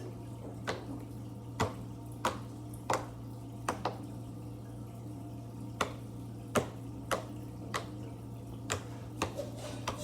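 Bubble-pop fidget toy being pressed bubble by bubble: a dozen or so short, sharp pops at an irregular pace, roughly one to two a second.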